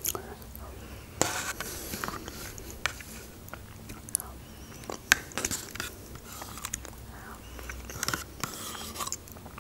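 Close-miked mouth sounds of eating yogurt from a spoon: scattered wet smacks and clicks of lips and tongue. Near the end the metal spoon scrapes inside the plastic yogurt cup.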